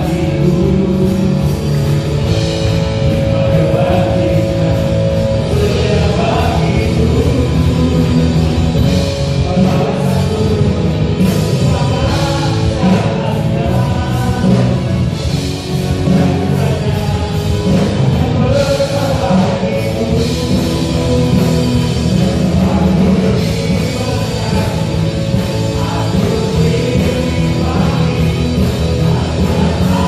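Live worship band playing an upbeat pop-rock praise song, with lead and backing vocals sung in Indonesian over drums, electric and acoustic guitars and keyboards.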